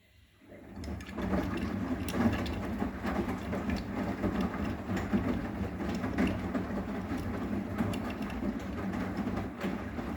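Arçelik 9120M washing machine running: a steady motor hum under a busy rattle and clatter from the turning drum, starting up about half a second in.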